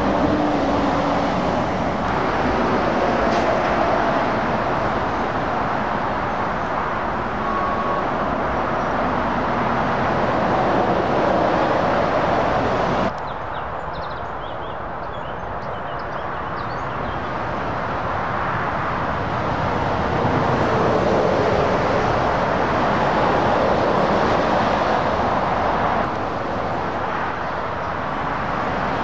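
Road traffic on a dual carriageway: lorries and cars passing close by, engine and tyre noise rising and falling. The noise drops suddenly about halfway through to a quieter stretch of distant traffic, then swells again as more vehicles approach.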